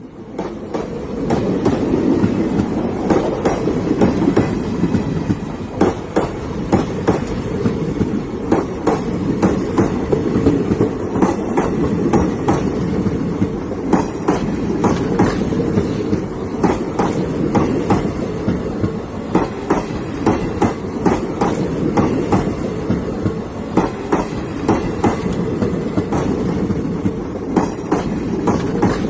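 Steady low rumble with sharp clicks and knocks repeating one to two times a second at uneven spacing.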